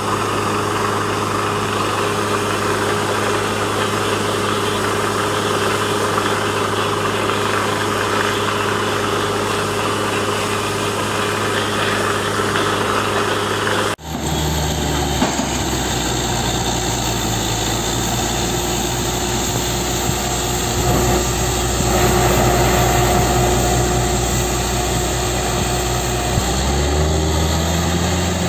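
Borewell drilling rig's engine and machinery running steadily. About halfway through, the sound changes abruptly to a heavier, lower drone with a fine regular pulsing.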